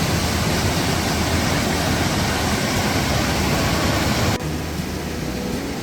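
Valley stream water rushing, a steady hiss of flowing water; it drops abruptly to a quieter rush about four seconds in.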